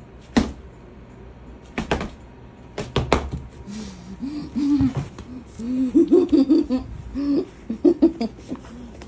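A few sharp knocks in the first three seconds, then a person laughing in a run of short rising-and-falling bursts.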